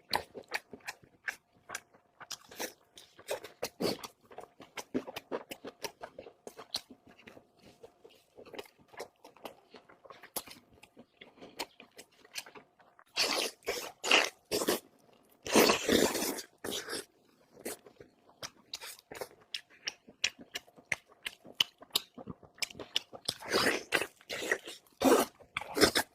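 Close-miked eating: a person chewing and biting into pork and rice, with steady wet mouth clicks and louder bites and crunches about halfway through and again near the end.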